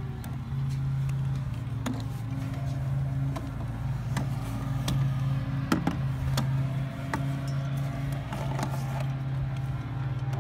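Steady low hum of a running motor, with scattered light clicks and taps over it.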